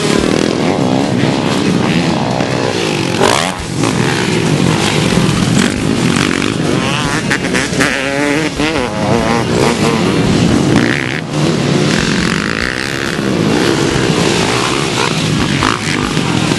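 Motocross bike engines revving hard as riders race and jump on a dirt track, the pitch climbing and dropping with throttle and gear changes, several engines overlapping.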